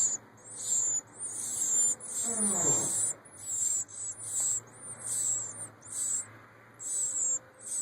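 Baby birds (fledglings) chirping: short, high-pitched, sweeping calls repeated about twice a second.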